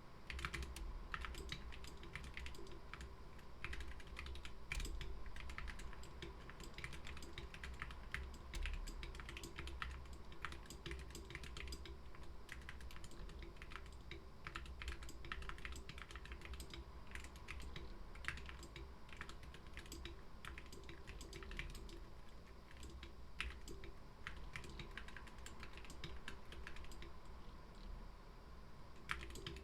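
Continuous typing on a GK61 61-key mechanical keyboard with Gateron optical black linear switches, whale keycaps and lubed, clipped stabilizers: a steady stream of quick keystrokes.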